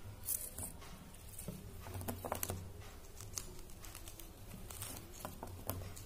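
Soft, scattered clicks and crackles of fresh pea pods being handled and split open by hand, over a faint low hum.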